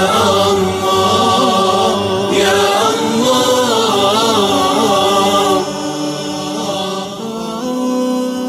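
Voices singing an Arabic nasheed, an Islamic devotional song, in layered harmony. A winding melodic line runs over held notes, then settles about six seconds in into a quieter, sustained chord.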